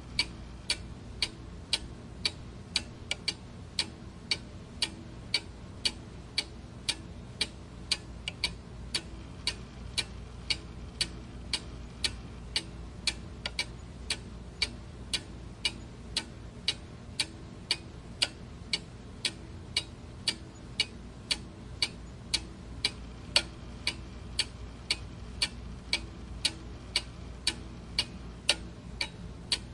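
Clock ticking steadily, about two sharp ticks a second, over a faint low hum.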